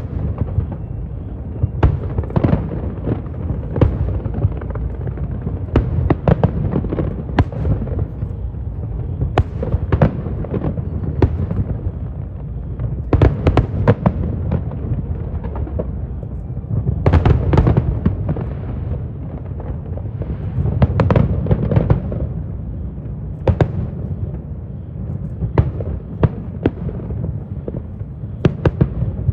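Fireworks display: a dense, continuous series of sharp bangs over a steady low rumble, with thicker volleys of bangs a little before the middle, just past the middle and about two-thirds of the way through.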